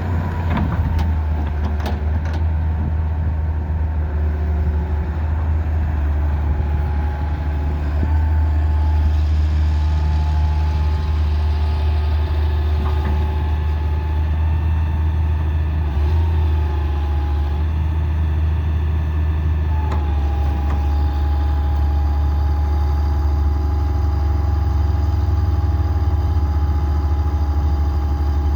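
Hitachi Zaxis 200LC excavator's diesel engine running steadily, with a thin whine above the engine hum that shifts pitch slightly a few times.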